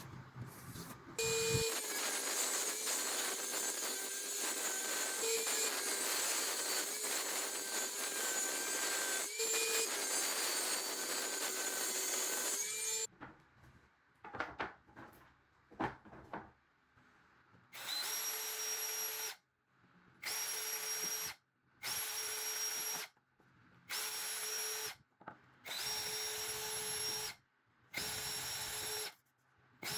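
A handheld electric power tool's motor runs steadily for about eleven seconds. After a few seconds of quiet with a few clicks, it is triggered in about six short runs of a second or so each, with brief pauses between them.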